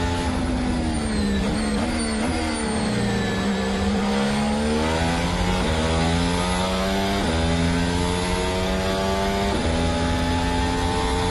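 Onboard sound of a 2014 Mercedes Formula 1 car's 1.6-litre turbocharged V6 hybrid engine, which is failing. The revs fall over the first few seconds as the car slows. They then climb again in three steps, with an upshift each time, in the second half.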